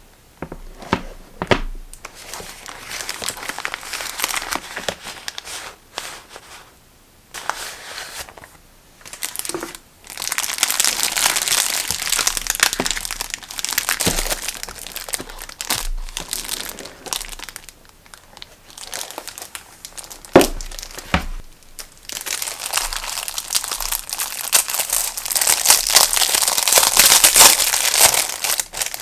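Clear plastic packaging crinkling and rustling as it is handled, with a few sharp taps and clicks between stretches; the crinkling is loudest and most continuous near the end.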